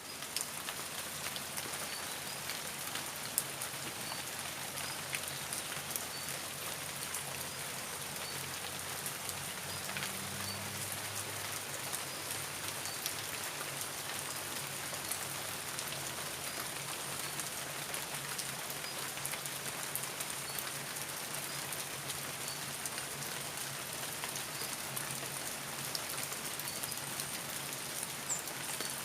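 Steady rain falling, an even hiss sprinkled with many small drop ticks.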